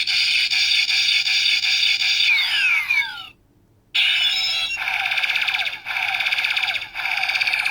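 Knock-off Kamen Rider W Double Driver toy belt playing its electronic sound effects through a small speaker: a loud buzzing tone with falling sweeps, a brief break about three seconds in, then a string of repeated falling chirps about once a second.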